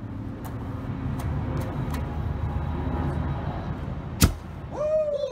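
Homemade plastic-bottle combustion cannon firing with a single sharp pop about four seconds in, over a steady low rumble of background noise; a voice exclaims just after the shot.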